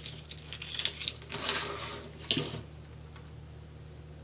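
Plastic deco mesh rustling and crinkling as it is curled and pressed by hand, with a short sharp click a little over two seconds in.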